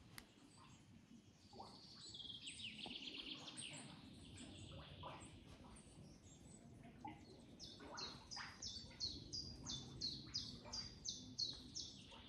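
Songbirds singing: a fast high trill, then from about seven seconds in a run of short repeated high notes, about three a second.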